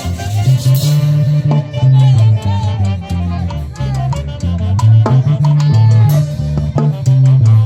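A band playing upbeat Latin dance music, with a bass line moving in steady notes, shaken and struck percussion, and melody instruments on top.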